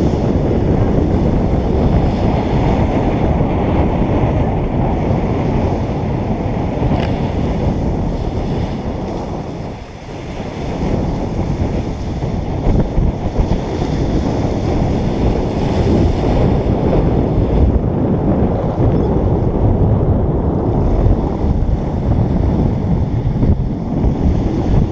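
Wind buffeting a GoPro's microphone as a loud, ragged rumble that dips briefly about ten seconds in. Surf washes on the shore beneath it.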